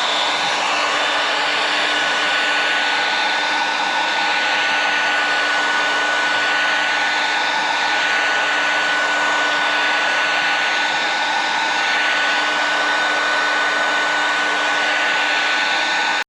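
Electric heat gun running steadily, its fan blowing hot air with a steady whine, softening an acrylic sheet so it can be bent to shape. It cuts off suddenly at the end.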